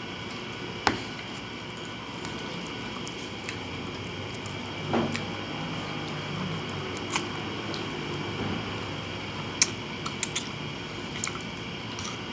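Spaghetti being eaten up close: wet slurping and chewing of noodles, with a metal fork clicking sharply against a ceramic plate several times.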